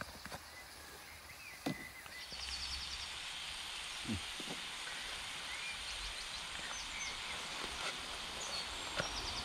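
Outdoor woodland ambience: a steady hiss that comes in suddenly about two seconds in, with small birds chirping and trilling over it.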